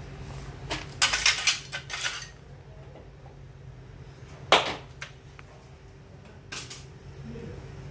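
Sharp metallic clinks and clatters of hand tools and loose metal parts being handled. There is a quick cluster about a second in, then two single knocks a few seconds apart.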